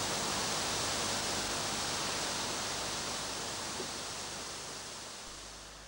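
A steady, even hiss of outdoor noise with no voices, fading out near the end.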